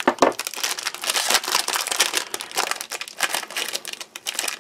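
Foil-lined ration pouch crinkling and crackling as it is handled and opened by hand, a dense run of small sharp crackles.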